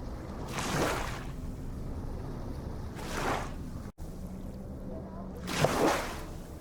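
Ocean waves washing in, three swells breaking about two and a half seconds apart over a steady low rumble of surf. The sound drops out for an instant just before the middle.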